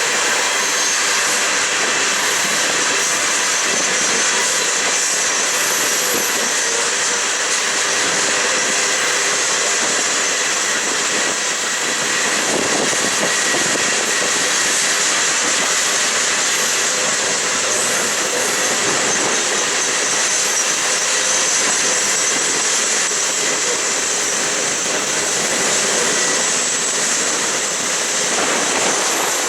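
Coal train cars rolling steadily past on a sweeping curve, a continuous loud rumble of wheels on rail with thin, high wheel squeal coming and going.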